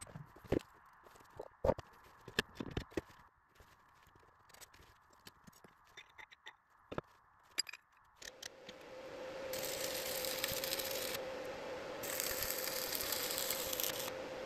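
Stick (arc) welding of thick steel plates: scattered clicks and crackles at first, then from about eight seconds in the arc's steady crackling hiss with a faint steady tone under it.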